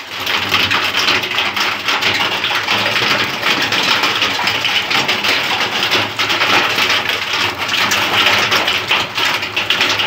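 Heavy hail with rain falling on a wet concrete floor: a loud, dense, steady patter of many small hailstone impacts.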